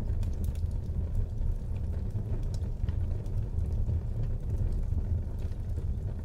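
Wood fire burning in a fireplace: a steady low rumble of the flames with scattered small crackles and pops.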